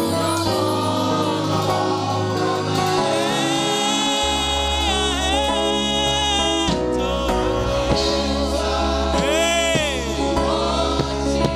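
Gospel praise music: a group singing over a steady band, with a bass line underneath.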